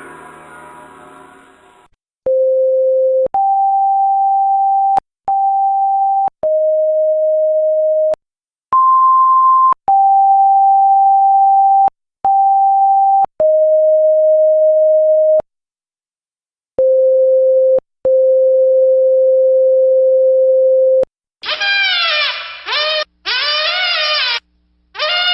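A ringing tone fades out, then a sequence of about ten steady electronic beep tones at a few different pitches, each held one to three seconds with short breaks between, like a tone-dialling melody. Near the end it switches to choppy bursts of a wavering, pitch-bending honk with many overtones.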